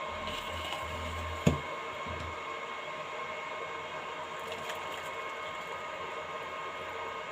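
Steady whirring hum, with a single sharp knock about one and a half seconds in, as the tea is being strained.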